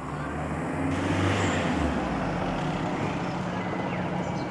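Small helicopter flying low overhead, its rotor and engine running steadily, with a stronger low rumble for about a second near the start.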